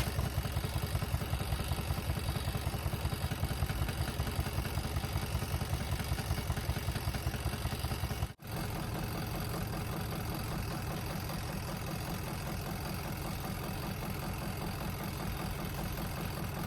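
Giantex twin-tub portable washing machine's spin tub motor running steadily, spinning out a soaking-wet load. About eight seconds in the sound cuts out briefly and gives way to a steadier, lower running hum.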